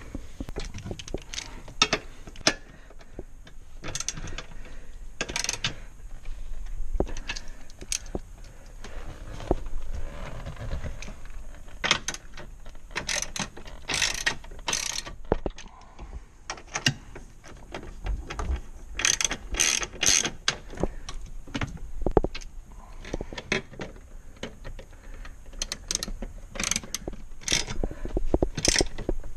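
Irregular clicks, knocks and short spells of rapid clicking from hand tools and dashboard parts being handled and fitted, with a denser run of quick clicks about two thirds of the way through and again near the end.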